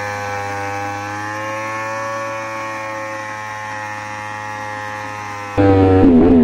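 Superbike engine running at high revs, its pitch drifting gently up and down. About five and a half seconds in it turns abruptly much louder and the pitch drops steeply as the engine winds down.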